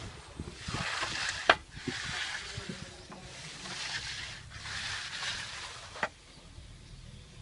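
A long-handled concrete float swishing and scraping over a freshly poured wet slab in about four push-pull strokes, with two sharp knocks from the tool.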